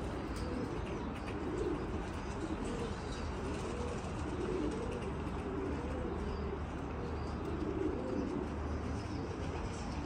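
Several domestic pigeons cooing, their low coos overlapping and following one another without a break.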